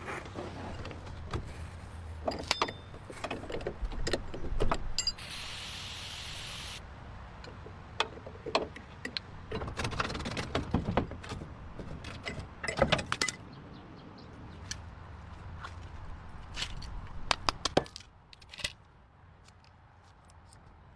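Workshop clatter: metal parts and tools knocked and handled, many sharp clinks and knocks over a low hum, with a steady hiss lasting about a second and a half some five seconds in.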